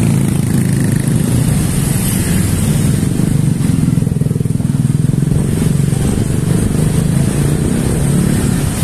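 Motor scooter engines running steadily in slow, dense motorbike traffic, a continuous low drone.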